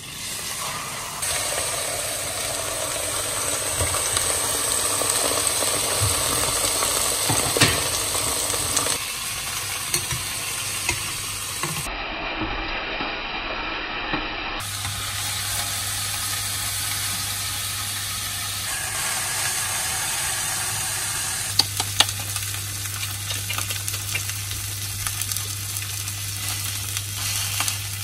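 Food sizzling in a hot frying pan, a steady hiss broken by sharp clicks of a utensil against the pan, loudest twice.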